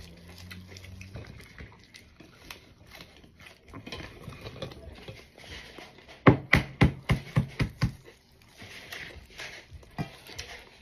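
A quick run of about eight sharp clicks or knocks, a little over six seconds in, over faint handling and mouth noises.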